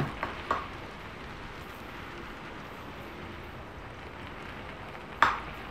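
Plastic rice paddle knocking and scraping against a steel rice pot and plate: two light knocks near the start and a sharper knock near the end, over a steady hiss of heavy rain.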